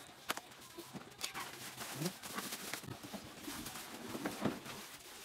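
Black bubble-wrap packaging rustling and crinkling as it is handled and pulled off a boxed telescope, in many small crackles. A few short pitched animal calls come in, about two seconds in and again near the end.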